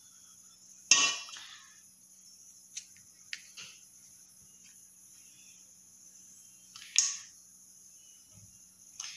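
Kitchen utensils knocking and clinking on a wooden rolling board as a bowl and a small lid are used to cut doughnut rings from rolled dough: two sharp knocks, about a second in and again about seven seconds in, with a few lighter clicks between. A steady high chirring of crickets goes on behind.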